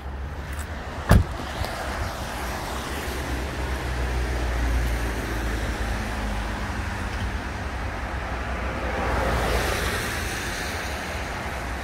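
Street traffic on a wet road: an even tyre hiss that swells as vehicles pass, about four and nine seconds in, over a steady low rumble. A single sharp knock about a second in.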